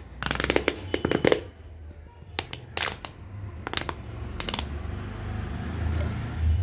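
Corrugated plastic pop tube being stretched and bent. A fast run of crunchy clicks comes in the first second and a half, then four single sharp pops spread over the next few seconds.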